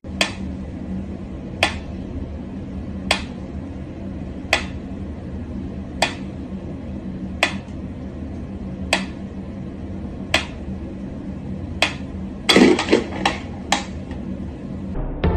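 Sharp, single taps repeating evenly about every second and a half over a steady low hum, then a quick flurry of louder taps near the end.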